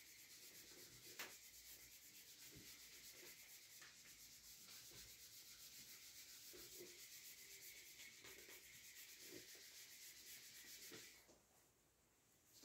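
Faint whiteboard eraser wiping marker writing off a whiteboard in steady back-and-forth strokes, stopping about a second before the end.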